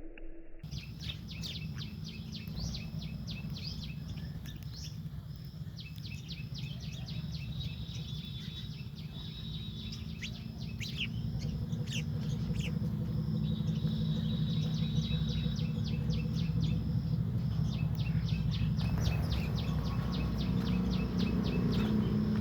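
House sparrows chirping: many short, quickly repeated chirps, over a steady low rumble that grows a little louder in the last few seconds.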